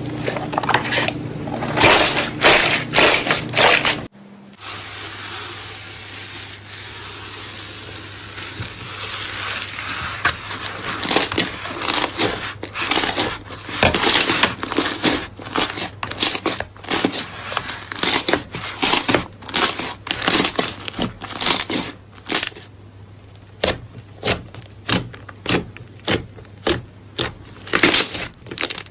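Slime being squeezed and pressed by hand, making repeated crackling, crunching squishes, roughly one or two a second. After a cut about four seconds in, a low steady hum runs underneath.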